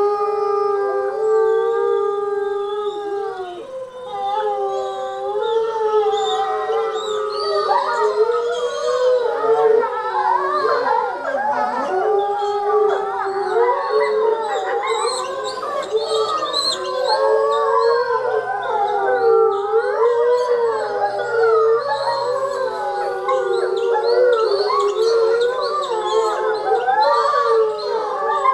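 A wolf pack howling. One long, steady howl opens it, and from about eight seconds in the rest of the pack joins in a chorus of overlapping howls that waver up and down in pitch.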